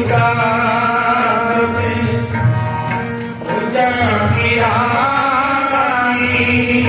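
Sikh kirtan music: tabla playing a steady beat under a drawn-out, wavering melodic line sung and played on harmonium.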